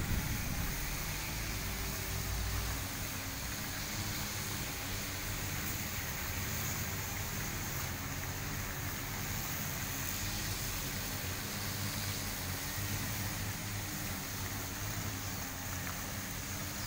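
Steady splashing hiss of small pond fountain jets, under the faint, wavering hum of distant grass-cutting machines.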